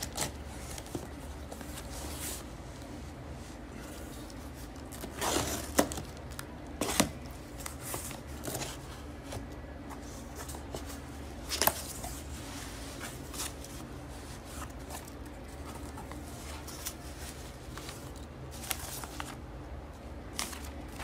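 Cardboard shipping box being opened by hand: packing tape tearing and cardboard flaps scraping as they are pulled back, then a paper packing slip rustling. The noises come in irregular scrapes and sharp crackles, sharpest about five to seven seconds in and again near twelve seconds.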